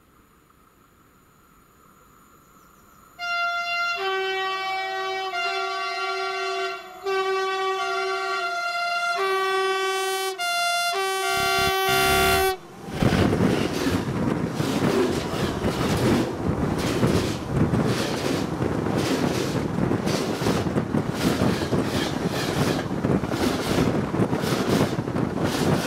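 Bombardier Traxx electric locomotive sounding its horn in long blasts whose pitch shifts between notes as it approaches. About halfway through the horn stops and a loud rush and clatter takes over as the locomotive and its freight wagons roll directly over the track-level microphone, with regular knocks from the passing wheels.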